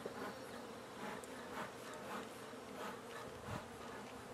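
Honey bees buzzing around an open hive as a package colony is being installed: a steady hum, with a few faint knocks.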